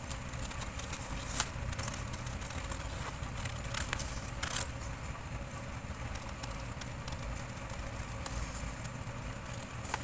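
Large tailoring scissors cutting through a sheet of paper along a curved pattern line, heard as a few sharp snips over a steady low background rumble.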